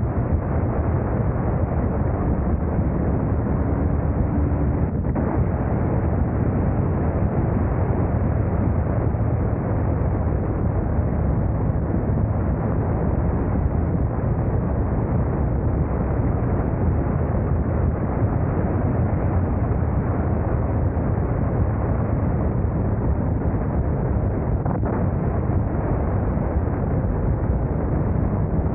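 Steady wind rush over a motorcycle-mounted camera's microphone with a low, unbroken rumble while riding, the noise heaviest in the low end.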